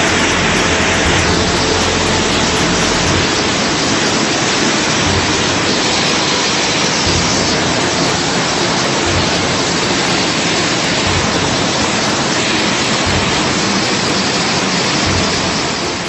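Muddy floodwater rushing past in a fast torrent: a steady, loud hiss of moving water, with low rumbles coming and going underneath.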